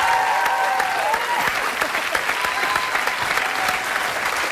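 Studio audience applauding, a dense steady clapping with a few voices calling out over it.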